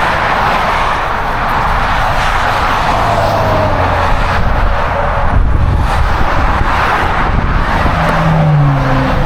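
A car on the road, its engine and tyres making a steady, loud rush of noise, with a brief rise and fall in engine pitch.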